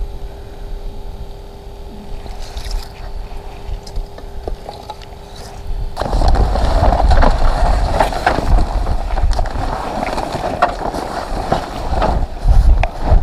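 Fabric ice shelter and gear sled being handled: loud rustling and scraping with low wind rumble on the microphone, starting abruptly about six seconds in. Before that there is only a faint steady hum with a few light clicks.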